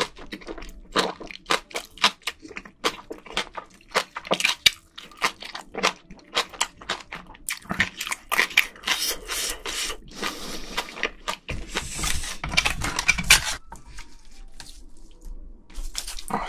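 Close-miked eating sounds: wet chewing and lip smacks, a few a second, then about halfway through a denser stretch of wet squelching and rustling as spicy seafood in sauce is picked through with gloved hands and chopsticks.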